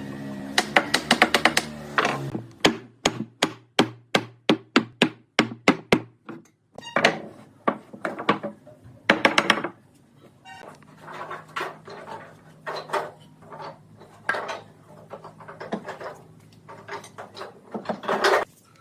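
Hammer blows on wood: a fast flurry, then an even run of about three blows a second, then slower irregular knocks. A low steady hum under the opening blows stops about two seconds in.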